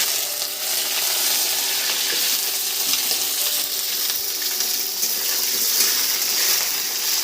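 Potato pieces frying in hot oil in a kadai (Indian wok), giving a steady sizzle while they brown.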